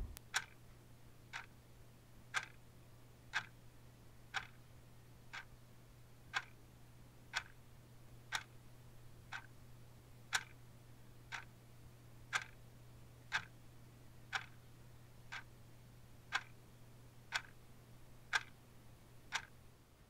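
Faint clock ticking steadily, about once a second, over a low steady hum.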